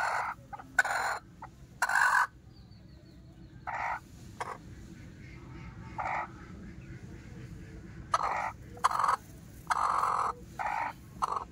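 Broody hens sitting on eggs, calling in about a dozen short bursts with pauses of a second or so between them, the loudest in the first two seconds.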